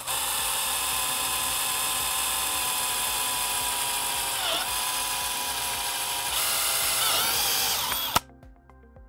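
DeWalt cordless drill running steadily with a 17/64-inch bit, drilling a hole through a metal mounting bracket. Its whine dips in pitch twice, then it stops suddenly about 8 seconds in.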